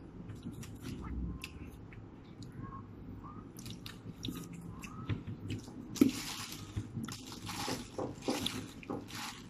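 Eating at a table: spoons and forks clicking and scraping on dishes, with plastic bags rustling from about six seconds in. A sharp click about six seconds in is the loudest sound.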